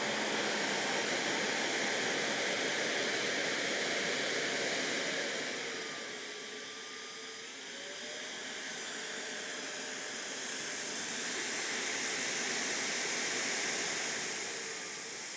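EGO Power+ 3200 PSI cordless electric pressure washer running in turbo mode, its high-pressure jet hissing steadily against a tractor tyre. The hiss eases for a couple of seconds about six seconds in, then comes back up.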